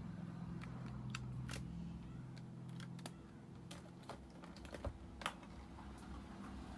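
Irregular light clicks and taps of small tools and parts being handled on a phone-repair bench, over a steady low hum. Two sharper clicks come about five seconds in.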